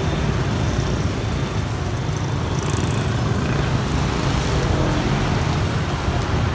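Steady road traffic rumbling past, vehicle engines and tyres on the street.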